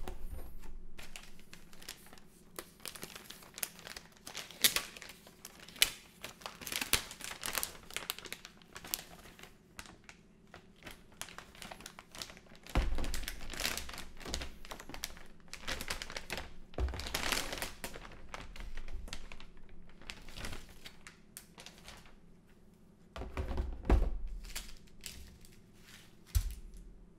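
Plastic anti-static bag crinkling and rustling in irregular bursts as a motherboard is slid out of it and handled, with a few low thumps of handling, the loudest about a second before the end.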